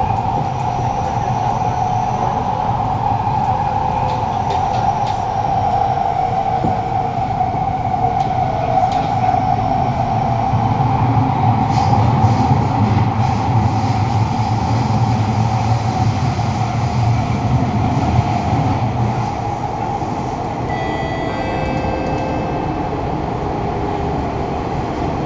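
Kawasaki-Sifang C151B metro train running through a tunnel, heard from inside the carriage: a loud, steady mid-pitched whine over a low rumble. Near the end the rumble eases and a few faint high tones come in.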